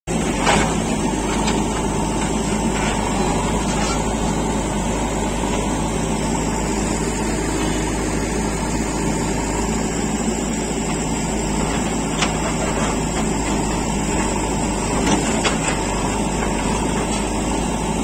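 JCB 3DX backhoe loader's diesel engine running steadily while the backhoe arm digs, with a few short sharp knocks scattered through.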